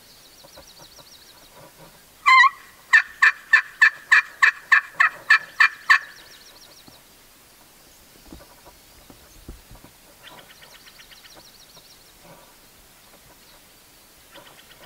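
Hand-held friction turkey call (pot call) worked with a striker. One loud sweeping note, then a quick run of about a dozen loud yelps at roughly four a second, stopping about six seconds in.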